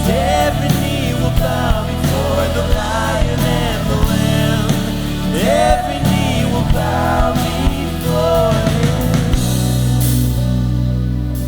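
Christian worship song played by a band with a lead voice singing over drums and bass. About nine and a half seconds in, the drums drop out, leaving held chords.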